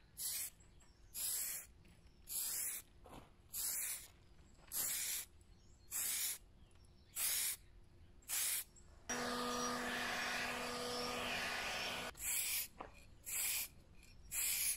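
Aerosol spray-paint can hissing in short bursts about once a second, with one longer spray of about three seconds in the middle and three more short bursts near the end: light passes over metal hinges, laying thin coats.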